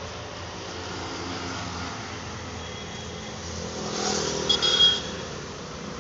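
A motor vehicle engine running steadily, swelling louder about four seconds in, with a brief high ringing sound just before five seconds.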